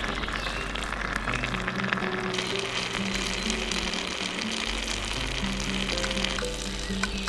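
Steady sizzle of Maggi noodles cooking in a tiny steel pot, with a few light clicks of a small spoon stirring near the end, over background music.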